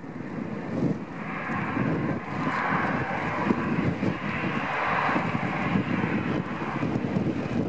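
Boeing 777-300ER's twin GE90-115B turbofans at takeoff thrust as the airliner lifts off and climbs away. A rushing jet noise over a low rumble, with the hiss swelling about a second in and strongest midway.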